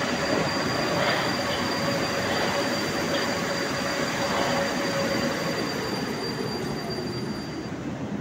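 Moscow metro train pulling into an underground station and slowing to a stop. Its loud running noise carries a steady high whine and a lower tone that falls away as it slows, and both ease off near the end as it halts.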